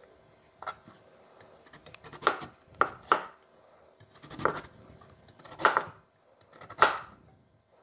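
Chef's knife slicing a peeled carrot into thick rounds on a plastic cutting board: about seven separate chops at an uneven pace, each stroke ending in a sharp knock on the board.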